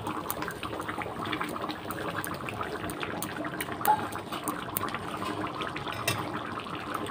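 Thick egg curry simmering in a kadai: a steady bubbling with many small scattered pops, and one sharper click about four seconds in.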